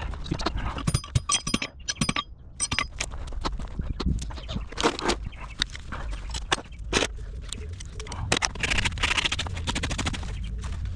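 Farrier's metal tools working on a horse's hoof and shoe: repeated sharp taps and metallic clinks, with scraping strokes near the end.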